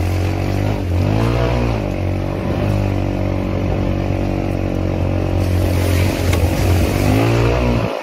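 Quad (ATV) engine running under way on a trail, its pitch climbing and dropping back as the throttle is opened and eased, once about a second in and again near the end.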